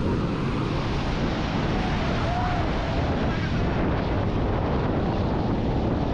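Wind buffeting the microphone over the steady rush of heavy sea surf breaking on the beach, with a faint call about two and a half seconds in.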